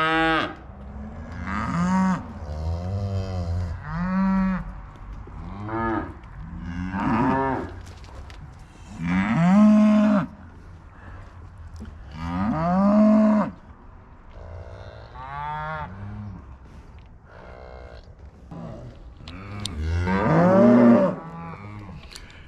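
Cows and calves bawling, about a dozen long moos from several animals at different pitches, each call rising and then falling, one after another and sometimes overlapping. It is the distress calling of cows and calves just separated at weaning.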